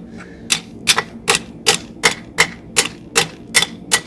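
Large hammer striking hot angle iron on the edge of an anvil to flatten it: a steady run of about ten full-face blows, roughly two and a half a second, starting about half a second in.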